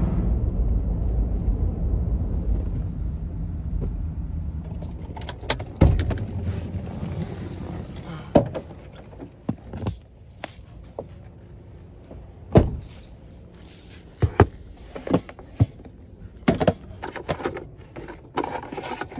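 Steady low rumble of a pickup truck's cabin on the road, fading away over the first several seconds. Then a string of sharp knocks, clicks and thunks as containers and cookware are handled in the truck.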